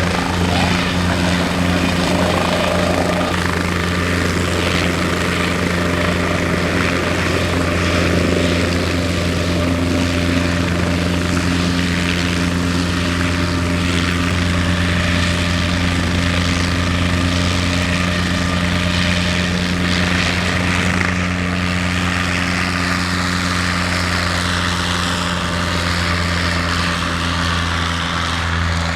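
An aircraft engine running steadily close by, a loud constant low drone with an even hum that holds the same pitch throughout. A faint falling whine comes in near the end.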